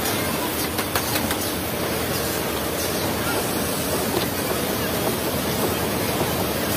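Steady noisy din of factory machinery, with a few light clicks about a second in.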